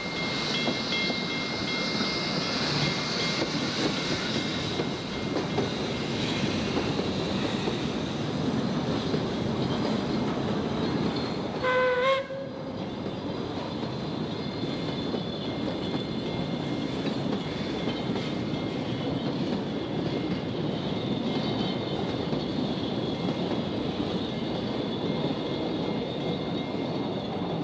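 A Puffing Billy steam train rolls over the level crossing with a steady rumble and clatter of wheels on rail, giving one short whistle blast about twelve seconds in. The crossing's mechanical bell rings over it, loudest near the start.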